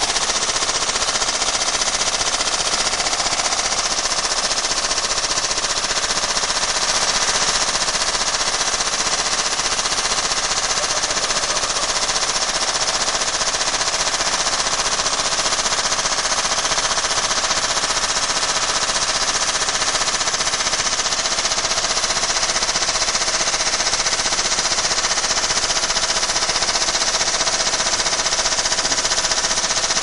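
Washing machine shaking itself apart, its drum and cabinet clattering in a rapid, continuous hammering that stays loud and steady throughout.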